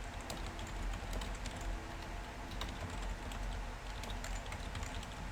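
Typing on a computer keyboard: a stream of irregular key clicks over a low steady hum.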